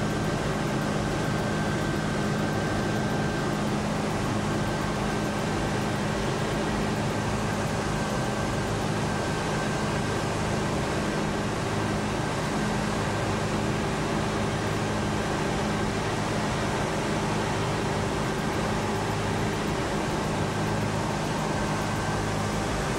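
A steady mechanical drone with a low hum, constant in level.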